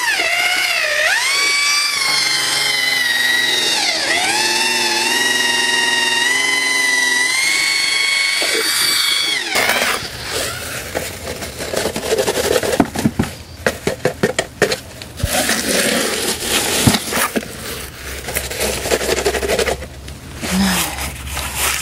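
Electric drill with a paddle mixer stirring concrete in a plastic bucket, its motor whine steady but dipping briefly in pitch as the load changes. It stops suddenly about nine seconds in, followed by a trowel scraping and knocking as wet concrete is packed into a wooden form.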